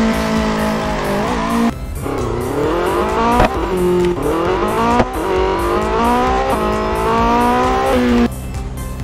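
Recorded sports-car engine sound revving up in pitch again and again, as if shifting up through the gears, with a few abrupt cuts. A faint regular beat runs underneath.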